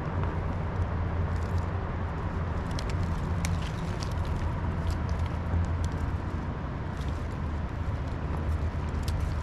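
Steady low rumble with scattered small clicks and knocks over it.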